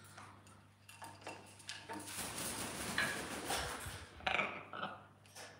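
Scattered light clinks and taps of parrots moving about their metal cage, perches and steel feed bowl, with a few brief soft parrot sounds after about four seconds.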